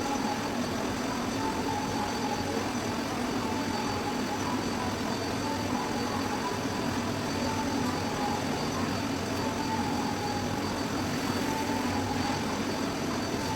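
A steady machine hum and hiss with a few constant tones, unbroken throughout.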